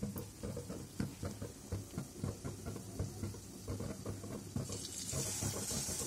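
Batter-coated chicken leg piece going into hot oil in a steel kadai on a low flame: soft knocks and handling noise, then a bright sizzling hiss that starts about three-quarters of the way in as the chicken meets the oil and carries on.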